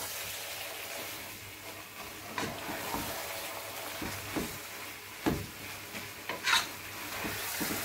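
Wooden spatula stirring a thick spinach sauce in a metal pot, with a few light knocks and scrapes against the pot over a steady sizzle.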